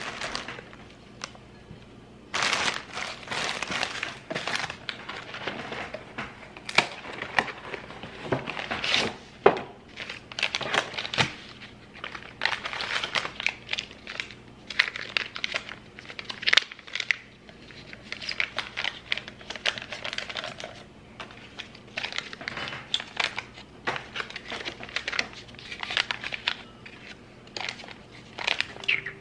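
Paper crinkling and rustling in irregular handfuls as shredded crinkle paper and paper packets are handled and pressed into glass mugs. It starts about two seconds in and goes on with short pauses.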